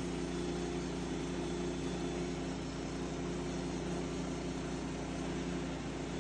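An engine running steadily at an even speed, a constant hum with a low rumble beneath it.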